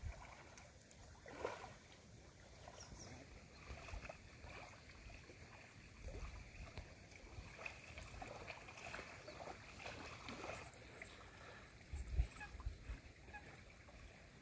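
Quiet outdoor background with low rumbles every few seconds, the strongest about twelve seconds in, and faint scattered handling noises from hands pressing bait dough onto a hook cluster.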